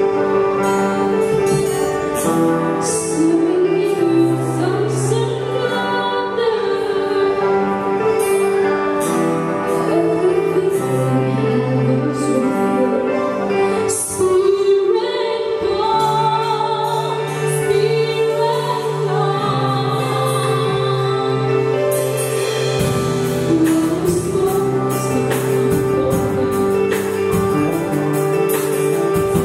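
Live pop-worship band: a woman sings lead over keyboard, electric bass, acoustic guitar and drums. The cymbals and drums become busier about three-quarters of the way through.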